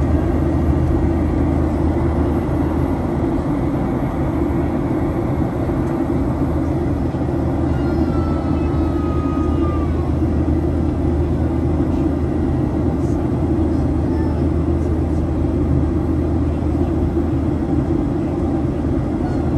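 Steady cabin noise of a Boeing 737-800 jet airliner in flight: engine and airflow noise, heaviest in the low range, with no breaks.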